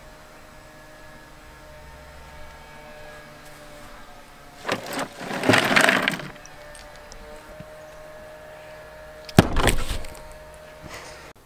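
A bluefish being pulled out of an ice-filled cooler, with a loud rattling rush of ice about five seconds in. About four seconds later comes a sharp slap as the fish lands on a plastic table.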